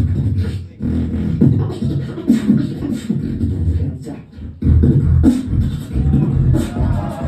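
Solo beatboxing amplified through a venue sound system: deep, bass-heavy vocal pulses with sharp snare-like clicks in a steady rhythm, with short breaks about a second in and again around four seconds in.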